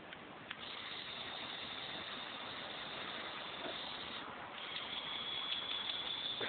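A LEGO Power Functions medium motor drives the arm of a motorised LEGO Technic 8294 excavator, making a steady high whine. It starts about half a second in, stops briefly around four seconds, then starts again a little louder.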